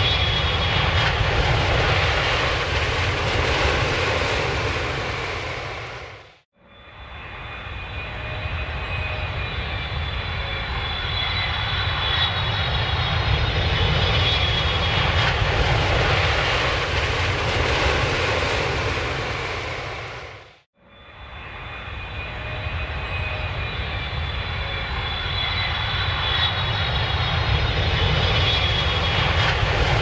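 Airplane engine noise: a steady deep rumble with a faint high whine over it. It cuts out briefly about six seconds in and again about twenty-one seconds in, each time building back up gradually.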